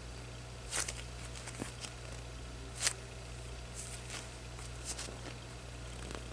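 Soft foam squishy toy being squeezed and handled: a few brief rustling crackles, the strongest about a second and three seconds in, over a steady low electrical hum.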